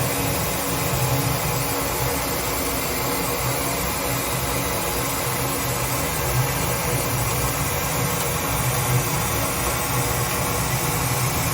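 Citizen A20 Swiss-type CNC lathe running under power, a steady machine hum and whir with a low hum that swells and fades every second or so.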